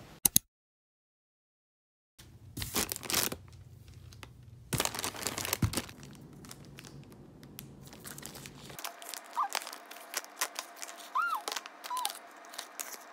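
A brief loud bump, then about two seconds of dead silence. Then the plastic shrink-wrap on an Ottogi instant cup rice bowl crinkles and tears in short bursts, followed by the plastic sachets inside crackling and clicking as fingers pull them out.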